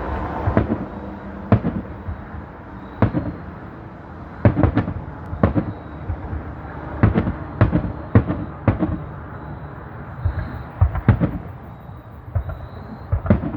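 Fireworks bursting: about a dozen sharp bangs at irregular intervals, some coming in quick pairs, over a continuous low rumble.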